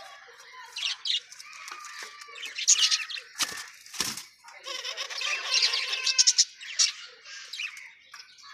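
Caged collared doves fighting: bursts of wing flapping, with two sharp knocks about half a second apart midway.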